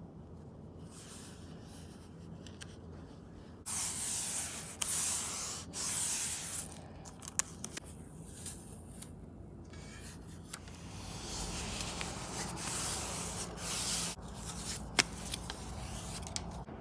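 Self-adhesive foam weather stripping having its backing strip peeled off and being pressed onto the truck's metal core support: two longer stretches of rasping peel noise, about four seconds in and again past eleven seconds, with scattered small clicks in between.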